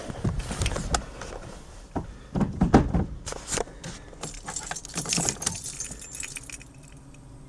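Keys jangling, with knocks and bumps as someone climbs into a van's driver's seat; it goes quieter for the last second or so.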